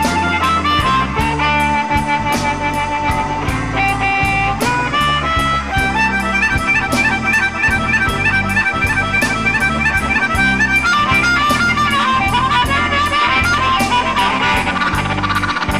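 Electric Chicago blues band playing an instrumental passage, with an amplified harmonica lead playing held, bending notes over bass and a steady drum beat.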